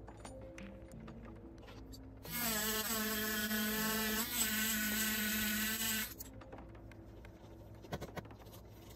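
A mini rotary tool with a cotton polishing bit buzzing against a coin, starting about two seconds in and cutting off after about four seconds; its pitch wavers once midway as it bears on the coin. Quiet around it.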